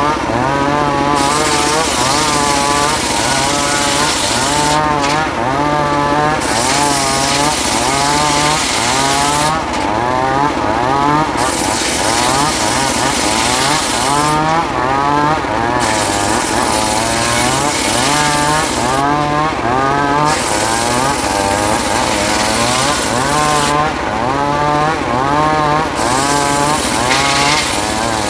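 Homemade circular saw ripping a trembesi (rain tree) plank: the large blade runs steadily through the wood with a loud hiss of cutting. The hiss drops out briefly every four to five seconds while the machine keeps running.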